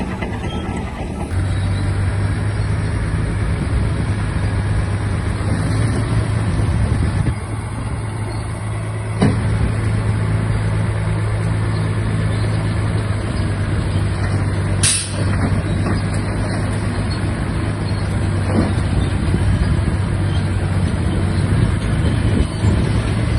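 Shantui DH17-C3 bulldozer's diesel engine running steadily under working load, stepping up about a second in, with a few clanks from the machine and one sharper burst about 15 seconds in.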